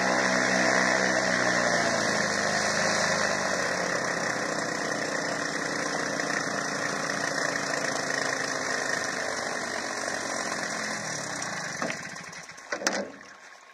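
A boat's engine running and slowing down, its pitch falling steadily until it dies away near the end, followed by a short knock.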